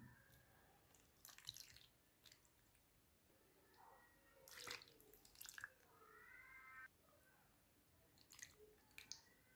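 Faint pouring of a milk and agar-agar mixture from a small saucepan into a loaf pan over sliced fruit. Small splashes, drips and gurgles come in a few clusters, about a second and a half in, around the middle and near the end.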